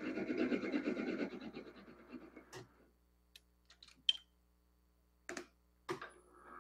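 Import bench lathe running a light spring pass, its gear train and feed clattering rapidly, then winding down to a stop over a couple of seconds. After it, a few sharp clicks and two short knocks come from the carriage handwheels and controls being worked.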